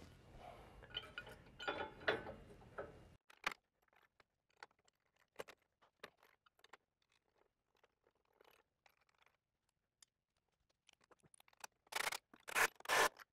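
Scattered light metallic clicks, clinks and scrapes of hand tools and bolts as a tow hook is bolted loosely onto the truck frame, with a few louder knocks near the end.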